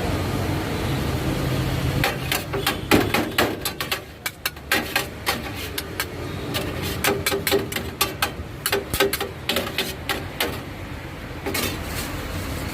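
Quick, irregular sharp knocks of a metal utensil striking a hard surface during shawarma preparation. They start about two seconds in, with a short break near the end, over a steady traffic hum.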